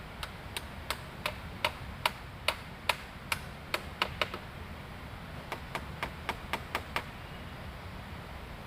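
A rapid series of sharp knocks, like chopping or tapping strokes, about three a second. The strokes pause a little past halfway, then come again in a quicker run of about seven.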